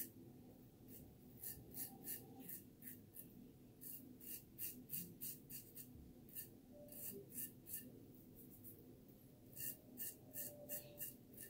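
RazoRock Blackhawk v2 safety razor scraping through two and a half days of stubble on a lathered neck. It makes quiet, crisp short strokes that come in four quick runs with pauses between them.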